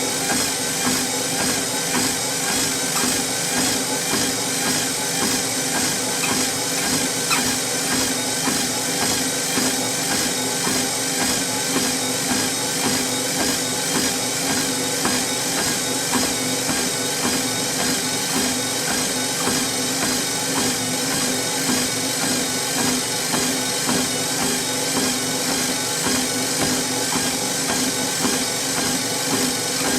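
Treadmill running with a steady motor hum and belt whir, with the regular, even rhythm of walking footsteps on the moving belt.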